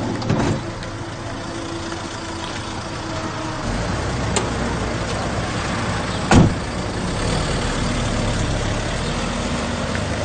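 Police van engine idling amid street traffic, its low rumble getting stronger about four seconds in. A van door slams shut once, loudly, a little past the middle.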